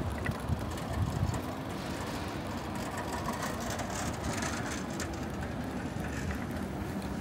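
City street traffic: a steady mix of passing vehicles' engines.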